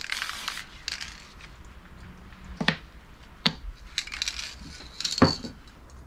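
Aerosol can of spray paint hissing for a moment at the start, then a few sharp clicks and knocks of objects being handled and set down on a workbench, the loudest about five seconds in.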